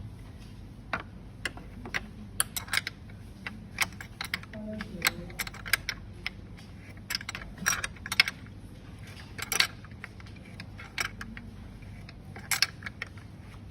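Irregular sharp clicks and clinks of small hard parts or tools being handled during a repair, a dozen or more spread unevenly with no steady rhythm.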